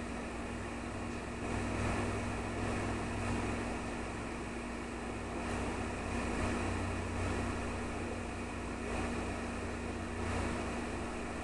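Steady mechanical hum with a constant low tone under an even hiss.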